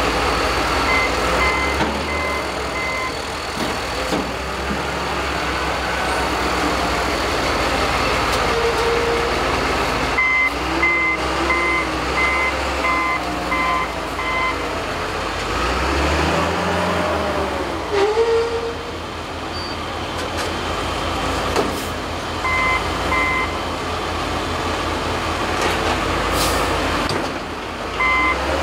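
Wheel loader's backup alarm beeping in several bursts, about two beeps a second, over the steady running of heavy diesel engines.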